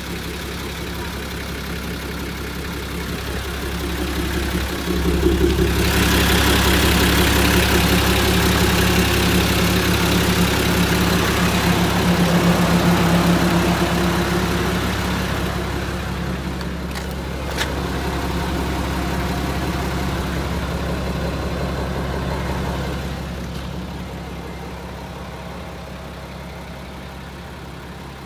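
Nissan TD42 4.2-litre straight-six diesel of a 1990 Nissan Civilian bus idling steadily. It is louder through the middle stretch, heard from under the chassis, and quieter near the end, with one short click about two-thirds of the way in.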